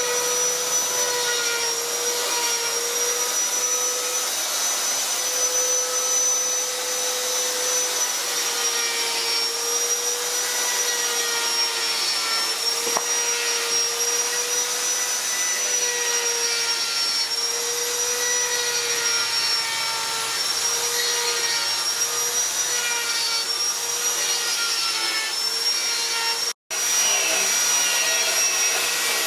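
Hand-held electric grinder running steadily at high speed on carved wood: a constant high whine with a gritty hiss. The sound breaks off for an instant near the end.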